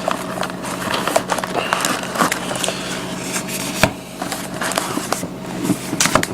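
Trading-card packs and their cardboard hobby box being handled: irregular crinkling and rustling of wrappers and cardboard, with a sharper knock about four seconds in.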